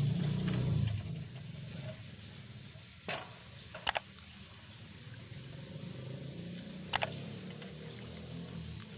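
A puppy lapping and slurping watery food from a metal bowl, with a few sharp clicks against the bowl.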